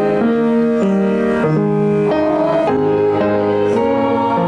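A small group of women singing a hymn together from hymnals, holding each note and moving in steady steps from one to the next.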